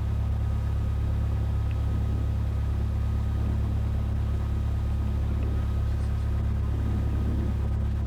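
Cessna 172F's six-cylinder Continental O-300 engine and propeller running steadily at low power on the ground, a deep even drone heard inside the cabin.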